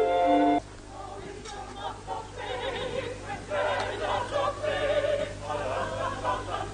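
An instrumental tune of steady notes stops abruptly just after the start. A group of voices then sings together, faint at first and fuller from about two and a half seconds in.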